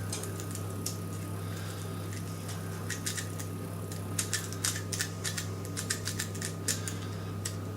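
A lock pick clicking and scraping against the pin tumblers of a door's cylinder lock held under a tension bar: a scattered run of small sharp metallic clicks, thickest from about three seconds in. A steady low hum lies underneath.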